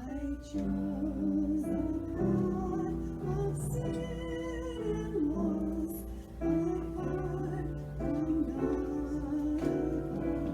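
Slow sung music: a singing voice holding long notes with vibrato over piano accompaniment.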